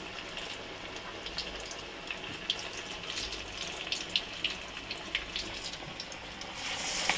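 Batter-coated potato slices (aloo bhajiya) deep-frying in hot oil in a kadhai on a low gas flame: a steady sizzle with many small scattered pops, growing a little louder near the end.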